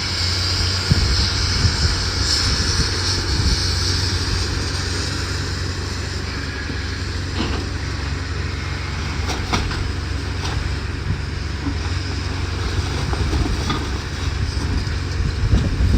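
Steady low engine rumble of heavy machinery running, with a few faint clanks scattered through it.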